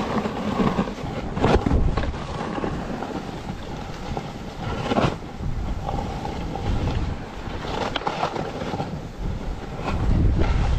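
Wind buffeting the camera's microphone while riding down a snowy trail at about 10 mph, over the steady hiss and scrape of sliding on packed, chopped-up snow. A few brief harder scrapes, and the wind rumble grows louder near the end.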